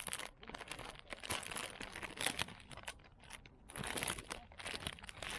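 Irregular rustling and crinkling, as of something being handled, in a run of short bursts with louder clusters about a second in, around two seconds, and near four seconds.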